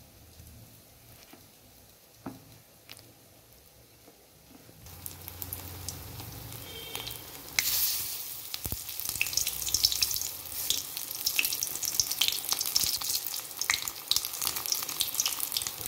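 Hot oil in a kadai sizzling and crackling as eggplant slices coated in lentil paste are laid in to shallow-fry. The first third is quiet; the sizzle starts about a third of the way in and jumps louder about halfway, as the next slice goes in.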